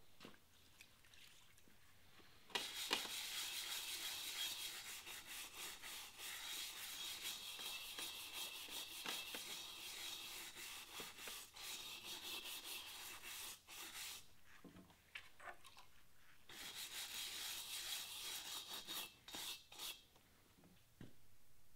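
Stiff-bristled scrub brush scrubbing the wet outside of a cast iron pot in quick back-and-forth strokes. It starts a couple of seconds in and comes in two long spells with a short break between them.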